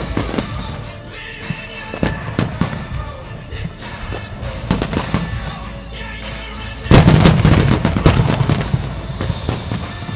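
Aerial firework shells bursting in a series of bangs, with a dense, loud volley of rapid bangs about seven seconds in.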